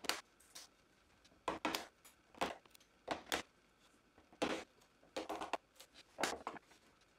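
Hand chisel paring waste wood out of a rabbet in a pine board: about a dozen short cutting strokes at uneven intervals.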